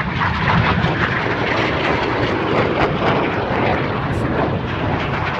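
Red Arrows BAE Hawk jets flying the display, their Rolls-Royce Adour turbofans making a loud, steady jet noise throughout.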